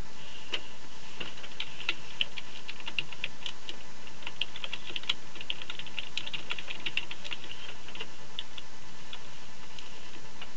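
Typing on a computer keyboard: quick, irregular key clicks, thinning out near the end, over a steady background hiss.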